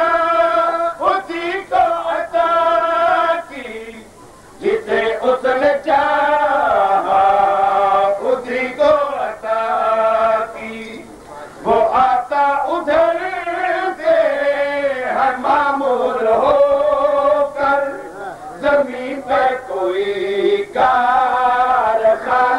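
A man singing Urdu verse in a slow, melodic chant, with long held notes that bend in pitch and short breaks about four and eleven seconds in.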